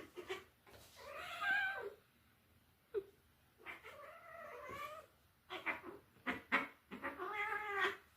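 Domestic cats caterwauling in a standoff before a fight: three long, wavering yowls, with short sharp cries between them.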